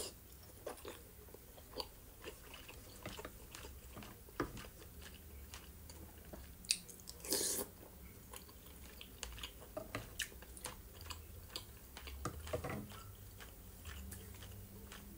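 Close-up chewing and mouth sounds of someone eating soft boiled homemade pelmeni, with many small wet clicks and smacks and a brief louder noise about seven seconds in.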